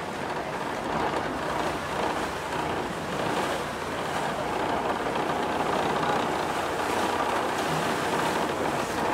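Tour boat under way at sea: a steady mix of engine noise and rushing water.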